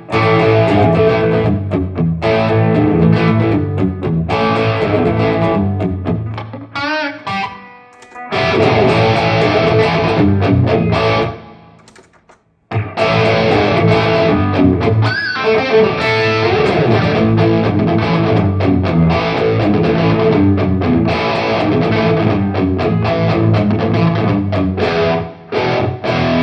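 Stratocaster-style electric guitar played through a Headrush Prime amp modeller on a mid-gain, classic-rock "brown sound" overdrive patch. The playing dips quieter around seven seconds in and stops briefly about twelve seconds in before resuming.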